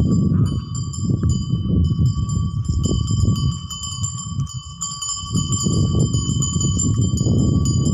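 Bells on a pair of working bullocks ringing and jingling steadily as the animals walk, over a loud low rumble that dips briefly about halfway through.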